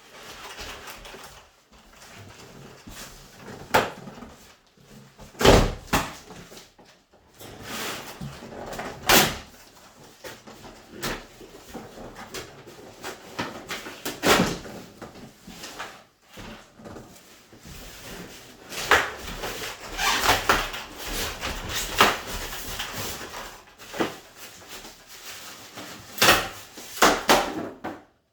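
Irregular knocks, bumps and rustling as the parts of a boxed YardBird chicken plucker are unpacked and handled, with the sharpest knocks about five and nine seconds in.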